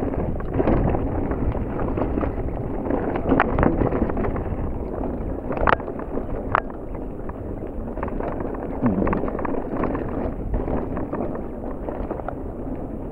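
Mountain bike rolling down a rocky dirt singletrack: a continuous rough rumble and rattle of tyres and bike over rocks, mixed with wind on the camera's microphone, with a few sharp knocks from hitting rocks, the loudest a little past the middle.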